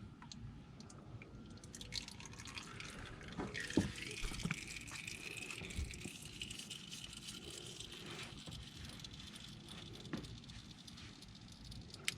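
Engine oil trickling and dripping from the oil filter mount just after the filter is unscrewed, faint, with a few small knocks.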